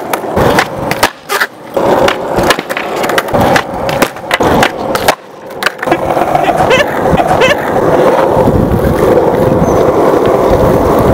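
Skateboard on concrete: a run of sharp clacks as the board is popped, flipped and lands, then a steady rumble of the wheels rolling over the concrete through the second half.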